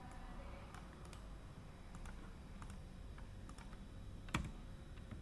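Typing on a computer keyboard: a string of faint, irregular keystrokes, with one louder key click a little over four seconds in.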